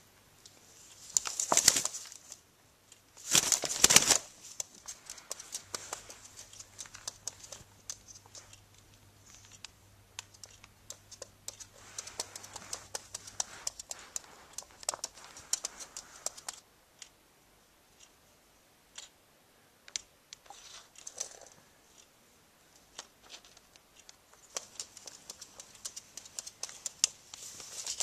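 A galah cockatoo moving about, making scattered light clicks, taps and scratches. Two louder rustling bursts come in the first four seconds.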